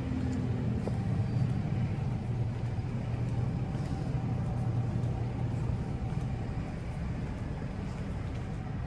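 Steady low hum of vehicle traffic, an engine running continuously without a clear change.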